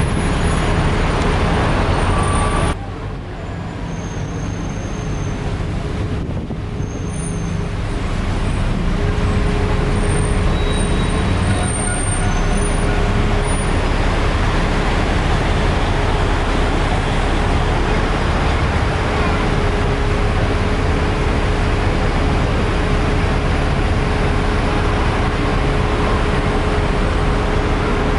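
Steady road and traffic noise heard from the open top deck of a moving double-decker sightseeing bus, with a faint steady hum through the second half. The noise drops suddenly about three seconds in and builds back over the next few seconds.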